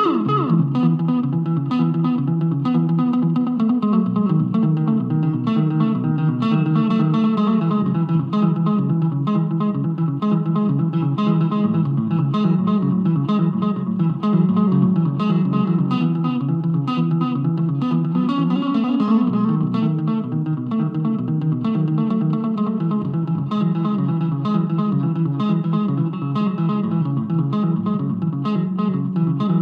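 Electric guitar playing a solo instrumental piece: a steady stream of quick plucked notes, with lower notes moving underneath.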